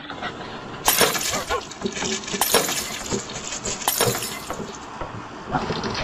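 Sharp glass-cracking sounds from a glass-floored walkway as it is walked on, three cracks about a second and a half apart. These are typical of the simulated cracking effect that such glass skywalks play to scare visitors, not glass actually breaking.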